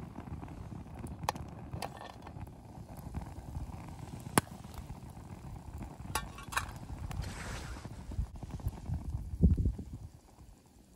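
Popcorn kernels popping in an aluminium mess tin on a gas canister stove: a few sharp, scattered pops, with a steady low rumble beneath. A heavier low thump comes near the end, after which the rumble drops away.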